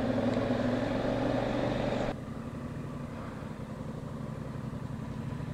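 Honda Africa Twin motorcycle engine running steadily on the move. About two seconds in, the sound drops abruptly to a quieter, lower running hum.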